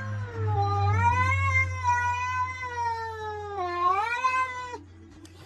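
Domestic cat giving one long, drawn-out yowl that wavers in pitch, dips low and rises again near the end, then cuts off suddenly.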